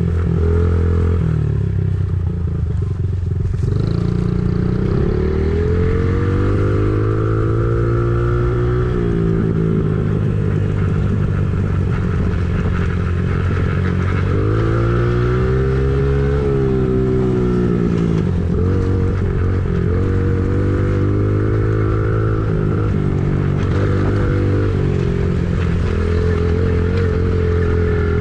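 An engine running, its pitch rising and falling every few seconds as the revs change, like a machine working under varying load.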